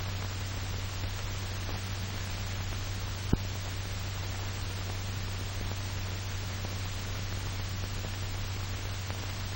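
Steady hiss with a low hum underneath, the background noise of an old film soundtrack. There is a single click a little over three seconds in.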